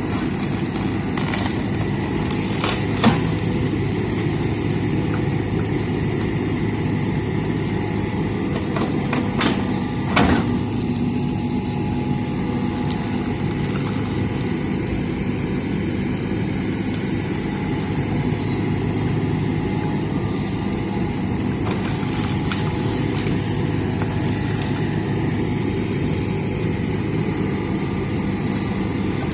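Hitachi excavator's diesel engine running steadily, with a sharp knock about 3 seconds in and another about 10 seconds in.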